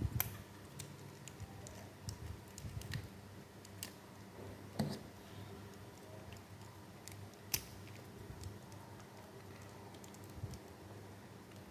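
Plastic action-figure parts being handled and fitted together: scattered light clicks and taps at irregular intervals, with sharper clicks just after the start and about 7.5 seconds in.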